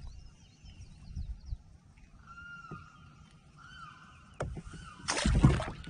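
Faint, thin bird calls over a quiet marsh background, then a short, loud splash about five seconds in as a freshly caught bluegill is dropped back into the water.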